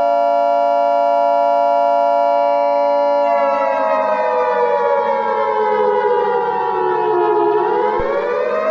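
Civil defense siren sounding a steady chord of several tones, then winding down in pitch from about three seconds in and starting to rise again near the end. This is the alarm of an attack warning.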